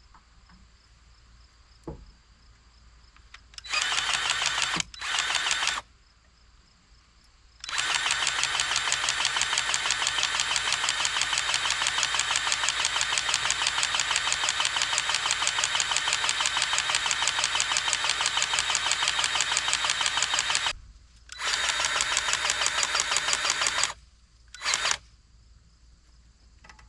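Powered grease gun pumping grease into a compact track loader's track tensioner cylinder to bring the track to tension. It runs in bursts with a fast even pulsing: two short bursts, one long run of about thirteen seconds, then a shorter run and a brief final burst.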